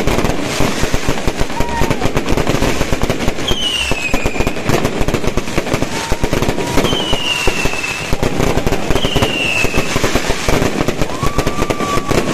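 Fireworks crackling and popping densely and without a break, with several high whistles over them, each gliding downward for about a second.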